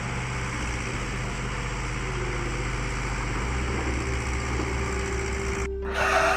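An engine running steadily. Near the end it breaks off abruptly and a louder, noisier sound takes over.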